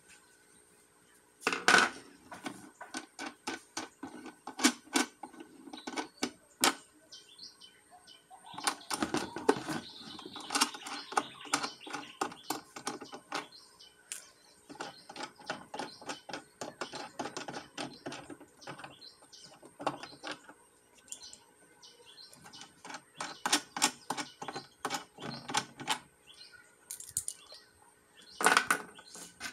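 Round plastic feet being twisted off the underside of an electronic platform scale: rapid clicking and scraping of the threads in several spells, with a few louder knocks.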